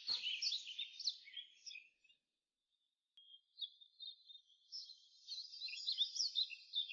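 Small birds chirping: a busy run of short, high calls with quick rising and falling notes, a pause of about a second, then more chirping from about three seconds in.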